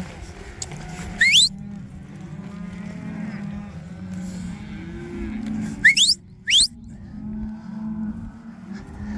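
A herd of cattle mooing, many calls overlapping. Three short, sharp rising whistles cut through, one about a second in and two close together around six seconds in.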